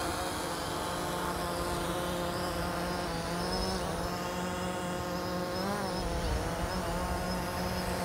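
DJI Phantom quadcopter's motors and propellers buzzing steadily as it flies off the beach. The pitch briefly rises and dips about six seconds in.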